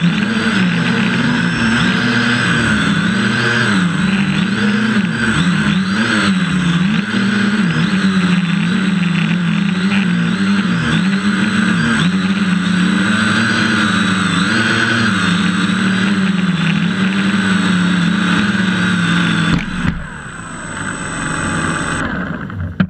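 FPV quadcopter's electric motors and propellers running: a steady buzzing whine that wavers up and down in pitch as the throttle changes. Near the end the sound drops sharply as the craft sets down and the motors wind down, then it cuts off.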